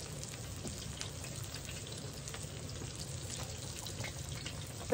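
Cornmeal-dredged crappie fillets frying in hot oil in a disc-blade wok: a steady sizzle with fine crackling. A single sharp click near the end.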